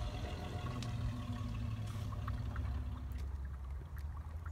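Shallow creek water trickling over stones, with a steady low rumble underneath.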